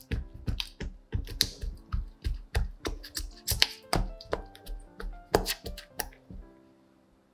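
Quick, even run of sharp taps and knocks, about four a second, over soft background music. The tapping stops about six seconds in.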